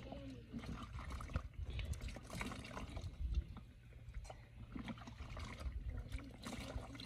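Water splashing and trickling in irregular bursts as handfuls are scooped from a plastic bucket and poured over a child's head, dripping back into the bucket.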